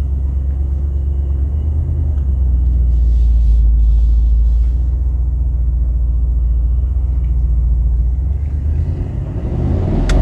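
Mercedes-AMG SL63's twin-turbo V8 pulling away under acceleration: a deep, steady exhaust rumble, loudest about midway, that grows louder and fuller again near the end as the engine revs.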